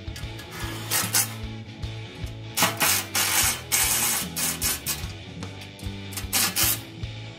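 Hand ratchet with a socket on an extension bar clicking in quick runs as bolts are tightened into an underbody bash plate, busiest in the middle, over background music.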